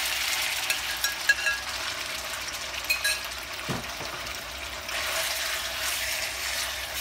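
Marinated chicken thigh strips sizzling in hot oil in a nonstick pan over high heat. A few light metal-on-glass clinks of a spoon scraping the bowl come in the first seconds, a dull knock about halfway through, then a spatula stirring the chicken.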